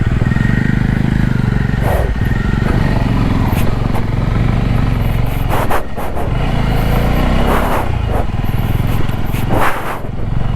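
Motorcycle engine running steadily while riding, with a few brief swells of noise over it.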